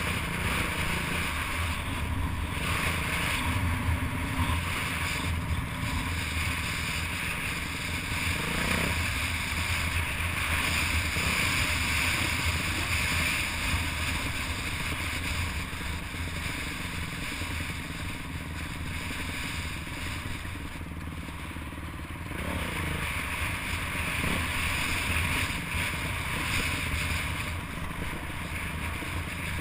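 Dirt bike engine running steadily as the bike rides down a rough trail, heard from an onboard camera with wind rushing over the microphone. The engine eases off briefly about two-thirds of the way through.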